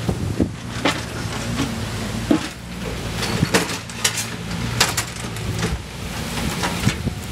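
Footsteps crunching on dry loose soil, irregular, about one or two a second, over a low steady diesel engine hum from an excavator running on site.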